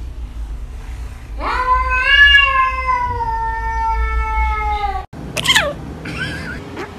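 A cat's long, drawn-out complaining meow that rises and then slowly falls, lasting about three and a half seconds. Then, after a cut, a kitten's short, sharp sneeze.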